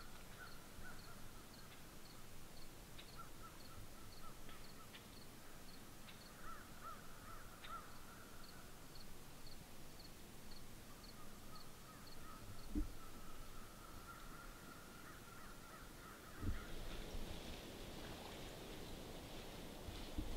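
Quiet woodland ambience with faint distant bird calls, including a run of high chirps repeating about twice a second. There is a soft thump about two-thirds of the way through, then rustling in the leaves near the end.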